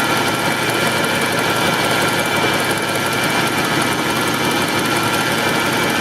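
Ford F-150's engine idling steadily while its newly installed remanufactured power steering pump whines, a steady high whine. The whine comes from air mixed into the power steering fluid as tiny bubbles.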